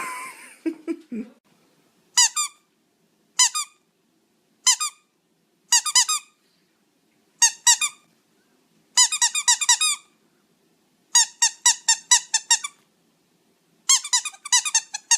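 Dog's squeaky toy squeaking over and over: single sharp squeaks about a second apart, then quick runs of squeaks around the middle and near the end.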